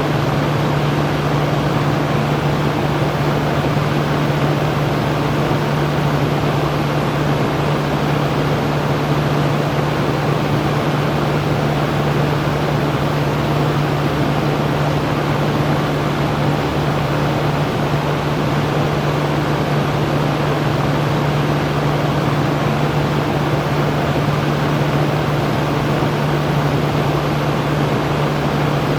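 Electric fan running steadily: an even whooshing rush of moving air with a steady low motor hum underneath.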